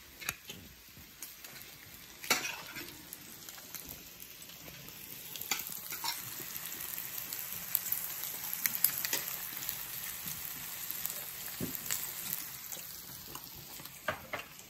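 Pork belly sizzling on a grill pan over a portable butane stove: a steady high hiss that swells in the middle. A few sharp clicks of utensils come through at intervals.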